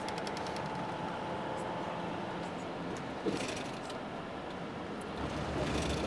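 Steady road and engine noise inside a moving vehicle, with a single sharp knock about three seconds in and the low rumble swelling louder near the end.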